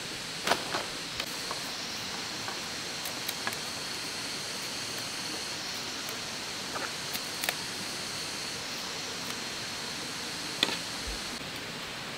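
Bamboo strips being split and shaved with a machete: a handful of short, sharp clicks and snaps, the loudest about half a second in and again near the end. Beneath them a steady forest hiss with a thin high-pitched tone that stops shortly before the end.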